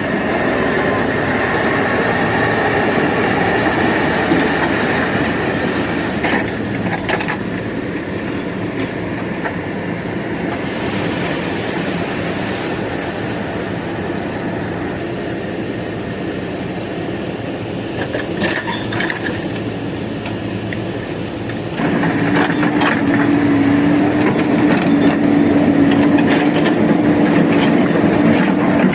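JCB backhoe loader's diesel engine running under working load, with occasional clanks. About three-quarters of the way through it gets louder and settles into a steady drone as the load rises.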